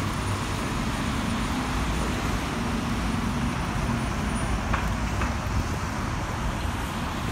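Steady outdoor city noise: an even, constant rush of road traffic.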